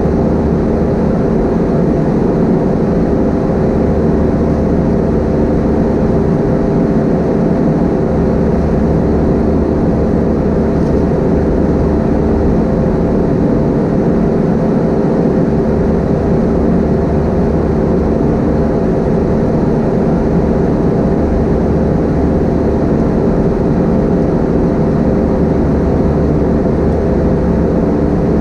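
Steady cabin noise of an Airbus A320-232 in flight: the IAE V2500 turbofans' steady drone with several fixed tones under the rush of air, heard from inside the cabin.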